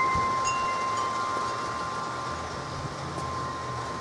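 Wind chimes ringing: a few struck metal tones, one about half a second in, hang on and slowly fade over a steady hiss of rain and wind.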